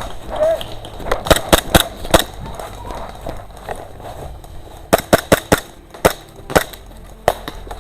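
Airsoft replica fired in rapid single shots: a quick string of about five sharp cracks, a pause, a second string of four, then a few spaced single shots near the end.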